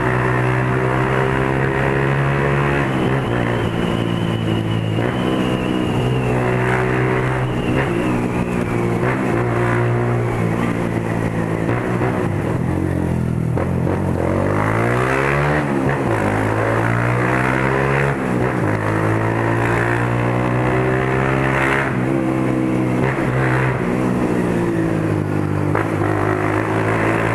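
Motorcycle with an open straight-pipe exhaust running under way, its engine note mostly steady, falling and then climbing again about midway as the throttle is eased and reopened.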